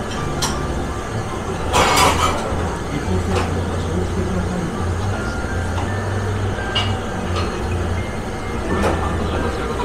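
Steady low rumble with a few light clicks and a short, louder rush of noise about two seconds in.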